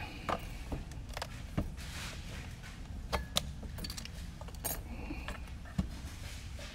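Scattered light clicks and taps from handling a handheld RC radio transmitter, its buttons and switches being worked, over a steady low hum.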